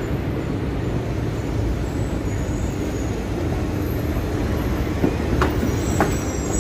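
Low steady rumble of city traffic and a TTC Bombardier Flexity Outlook streetcar rolling through the intersection. From about five seconds in its steel wheels click sharply over the crossing track junctions, with a faint high wheel squeal.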